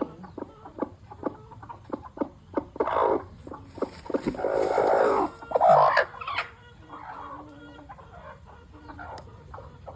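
Chickens clucking in a quick run of short calls, with louder, harsher squawks around the middle and fainter calls near the end.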